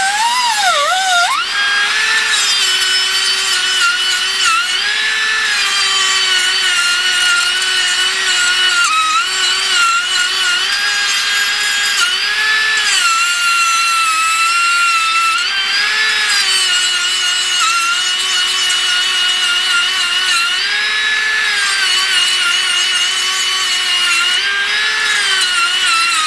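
Handheld grinder grinding a rusty steel exhaust pipe: a steady, loud, high whine whose pitch dips and recovers each time the wheel is pressed into the metal. The metal is being ground away around a cracked weld to clean it up before a patch is welded over the hole.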